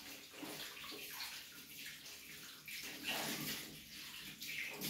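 Kitchen tap running into a stainless steel sink, with uneven splashing as things are scrubbed and rinsed under the stream.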